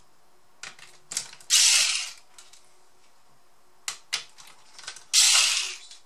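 Electric screwdriver running in two short bursts, about a second and a half in and again near the end, turning the screws on a laptop's underside. A few sharp clicks of the tool and bit come just before each burst.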